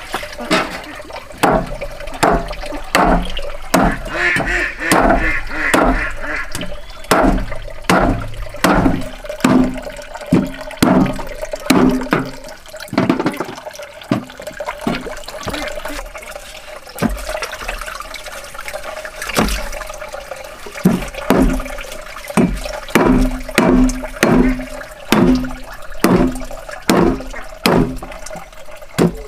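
Cleaver chopping raw meat on a wooden block, steady hard chops about two a second, with water running from a hose into a plastic basin.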